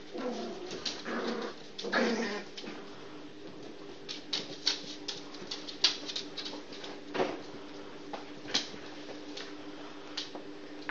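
Yorkshire terrier puppies at play: a few short whines in the first couple of seconds, then scattered sharp clicks and taps, over a steady low hum.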